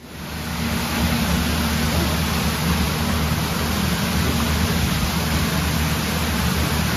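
Thermal spring water cascading over an iron-stained stone ledge beneath a stone arch. It is a steady rushing of falling water that swells up within the first second and then holds even.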